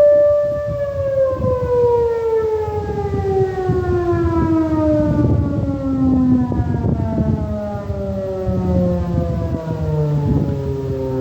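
Tornado warning siren holding a steady wail for under a second, then winding down, its pitch sliding slowly and steadily lower for about ten seconds.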